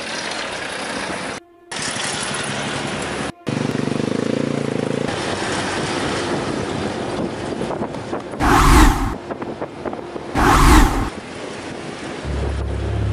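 Road vehicles driving: engine and tyre noise from a 4x4 pickup and SUV, in short pieces cut together so the sound drops out briefly twice in the first few seconds. Two loud noisy bursts come about two seconds apart past the middle, and a low steady hum starts near the end.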